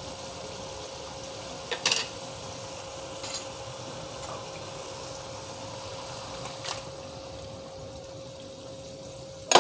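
Red chilli gravy simmering in a frying pan after the oil has separated, a steady bubbling hiss with a faint hum under it. A few light knocks of utensil or paneer against the pan, the clearest about two seconds in.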